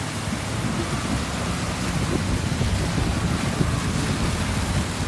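Suzuki Jimny wading through a ford: a steady rush of water splashing off its wheels and bow wave, with the engine running underneath and wind buffeting the microphone.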